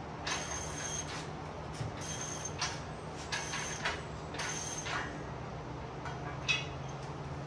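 Four short rasping metal-on-metal strokes about a second apart, from steel parts of a bolt-together pit lift being worked together, then a single sharp click; a steady low hum runs underneath.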